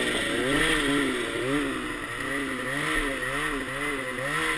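Snowmobile engine running through deep powder, its pitch rising and falling over and over, about twice a second, as the throttle is worked.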